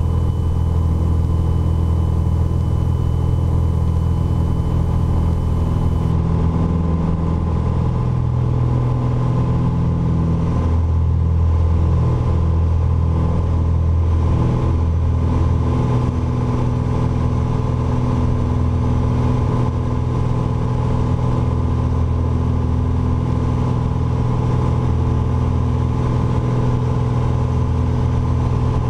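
Piper Dakota's six-cylinder Lycoming engine and propeller running at takeoff power, a steady drone through the takeoff roll and climb-out.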